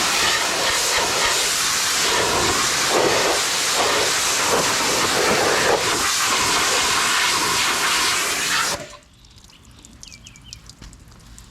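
Pressure washer spraying water in a loud, steady hiss that cuts off suddenly about nine seconds in.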